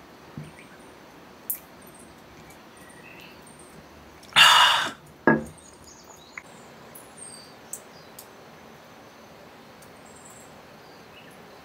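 Quiet outdoor background with faint bird and insect chirps and a few light ticks. About four and a half seconds in comes a short, loud rushing noise, followed a moment later by a second, shorter one.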